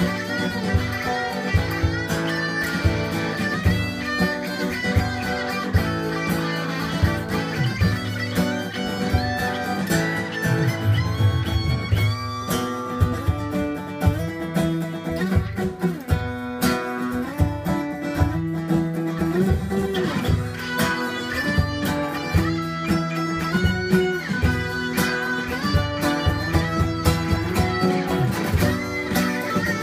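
Live jam of an acoustic guitar strumming and an electric guitar playing through a small amp, over a steady beat tapped out on a tablet drum app.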